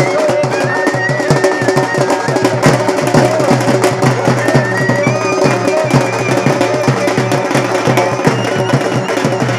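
Traditional drums beating a fast, steady rhythm, with a high wavering melody line playing over them at times.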